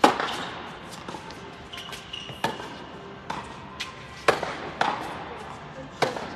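Tennis balls struck by rackets and bouncing on an indoor hard court, a sharp echoing pop every half second to a second through a doubles rally; the loudest hit comes right at the start, with a serve.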